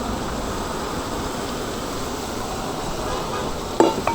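Steady rushing noise from a street-food stall's cooking equipment, with a short metallic clink and brief ring near the end.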